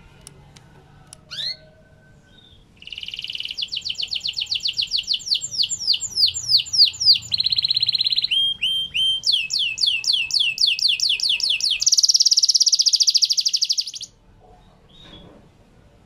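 Yellow AF-series canary singing: a few short call notes, then a long song of falling whistled notes repeated several times a second, broken by a brief buzzy trill. It ends in a fast rattling trill that stops suddenly.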